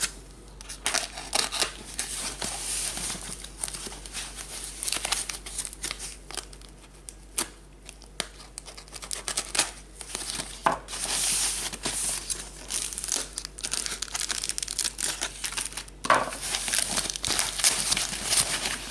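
Thin foam packaging wrap and parcel material being crumpled and torn open by hand, an irregular run of crinkling and ripping.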